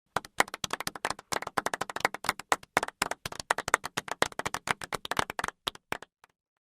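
Hands clapping in a quick, irregular patter, as of a few people applauding, starting abruptly and thinning out to a last few claps before stopping about six seconds in.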